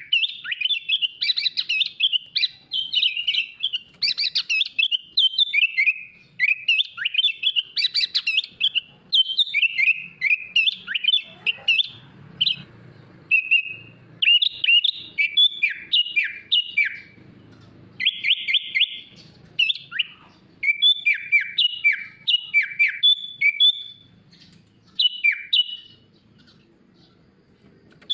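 Sooty-headed bulbul (kutilang) singing a long, varied song of quick chirps and sweeping whistled notes in rapid bursts, with a few short pauses.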